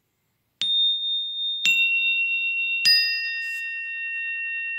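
Three chime notes struck one after another about a second apart, each lower than the last, each ringing on so that the notes overlap into a slowly fading chord.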